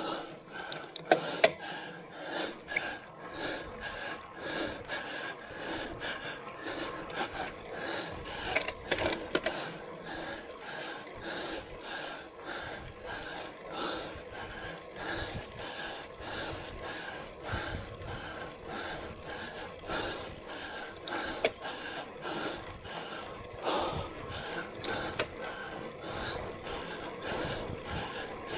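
A cyclist breathing hard in a steady rhythm, about two breaths a second, while climbing a steep grade, with bicycle drivetrain noise underneath. There are two sharp clicks about a second in.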